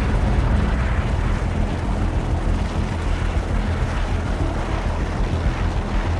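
Search-and-rescue helicopter running steadily overhead, a continuous low hum under a broad noisy rush.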